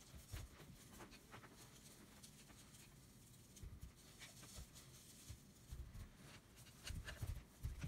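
Very faint handling sounds: dry rub being shaken from a spice shaker and patted into raw flat iron steaks with a gloved hand, scattered soft taps and rustles. A few low thumps come near the end.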